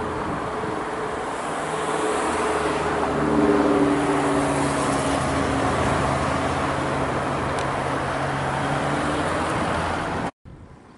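Motor traffic: a steady rush of road noise with an engine's low hum underneath, cutting off suddenly near the end.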